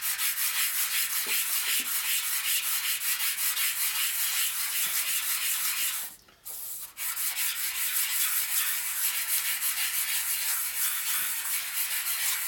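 A small engine part rubbed by hand in quick, even strokes on worn 120-grit sandpaper laid on a flat plate: a steady gritty rasping as the gasket face is flattened. The strokes stop briefly about six seconds in, then carry on.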